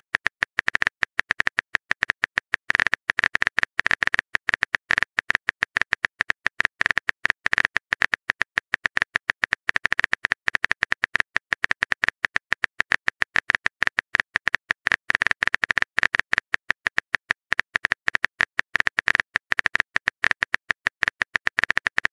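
Rapid, uneven keystroke clicks from a texting app's typing sound effect as a message is typed out letter by letter.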